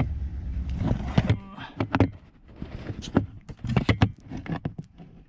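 Scattered clicks, knocks and rustling from handling in a car's footwell under the dashboard, with a low rumble for the first second and a half.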